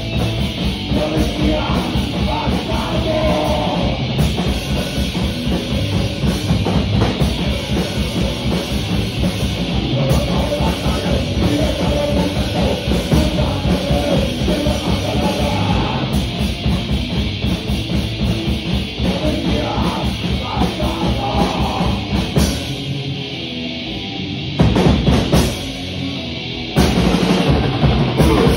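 A live heavy rock band played loud through a club PA, heard from the crowd: fast, driving drum kit with electric guitars and bass. About 22 seconds in the music thins out for a few seconds, broken by one short loud burst, and the full band comes back in near the end.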